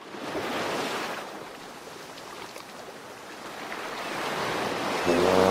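Rushing sound of ocean waves that swells in the first second, eases, then builds again. Near the end a deep, steady horn-like note comes in.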